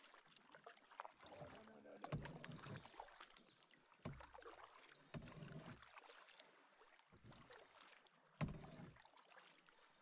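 A canoe being paddled: a handful of irregular strokes, each a low thump with a swish of water. The loudest, sharpest thump comes about eight and a half seconds in.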